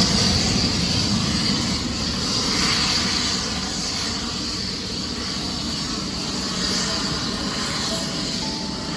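Jet engines of a Boeing 777-300ER, its GE90 turbofans, giving a steady rush with a high whine on top and slowly fading.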